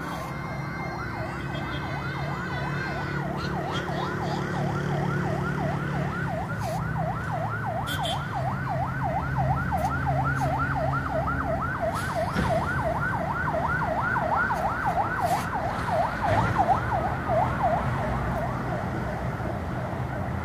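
Siren in a fast yelp: a rising-and-falling sweep repeated about four times a second, growing gradually louder over a low rumble.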